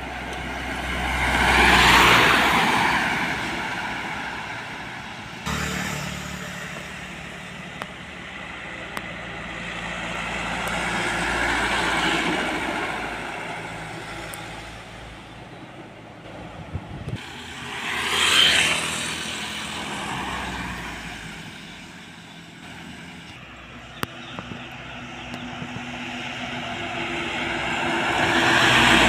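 Road traffic passing by: four vehicles in turn, each one swelling up and fading away. The loudest passes about two-thirds of the way through, with a falling pitch as it goes by.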